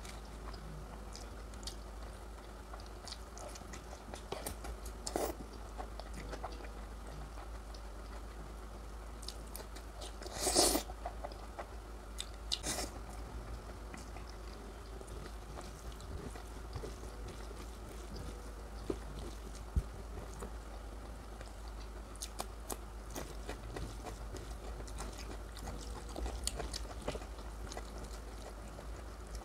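A person eating a curry-and-rice meal close to the microphone: soft chewing and small wet mouth clicks, with a few louder bursts of eating noise, the loudest about ten seconds in, over a steady low hum.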